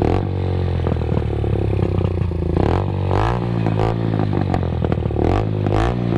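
Benelli TNT 15's 148cc air-cooled single-cylinder four-stroke engine, exhaling through an aftermarket exhaust with its silencer removed. It idles, then is revved up and let fall back several times, a bit noisy.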